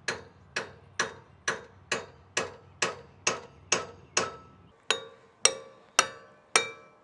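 Hammer blows on a steel chisel driven into the seam between a Ferris wheel's seized hub halves to spread them apart, struck steadily about two times a second. Each blow rings, and the last few ring with a clearer metallic tone.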